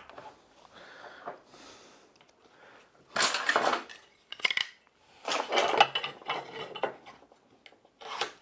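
Hand tools and timber being handled on a wooden workbench: a metal square set down and slid against a myrtle board, clinking and scraping in several short bursts from about three seconds in.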